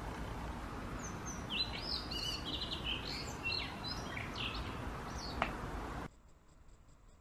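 Male blue rock thrush singing a warbling run of varied, quickly gliding whistled notes over a steady outdoor background hiss. A single sharp click comes near the end of the song, and about six seconds in the background noise cuts off abruptly.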